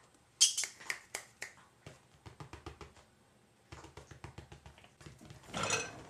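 A cat moving about inside a dishwasher: scattered clicks and light rattles of paws and claws on the tub and wire racks, loudest about half a second in, with a short call near the end.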